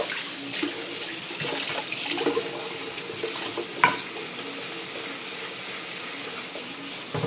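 Tap water running steadily into a sink, with one sharp knock about four seconds in.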